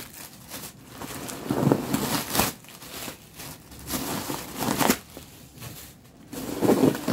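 Packing-paper stuffing crinkling and rustling in irregular handfuls as it is pulled out of a new backpack.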